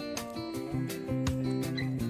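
Background music with a steady beat and held melodic and bass notes.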